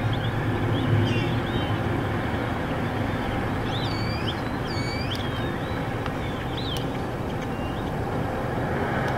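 Steady background noise with a low hum. Several short bird chirps come through it about four to five seconds in and again near seven seconds.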